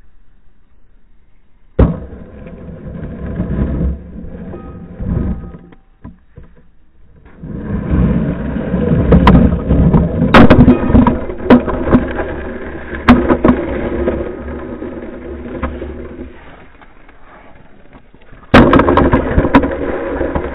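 Hockey stick blade knocking a Xiaomi Yi action camera along pond ice, heard from the camera's own microphone: sharp hits with the rough scrape of the camera sliding over the ice. There is a hard hit about two seconds in, a long run of scraping with several quick knocks in the middle, and another hard hit near the end.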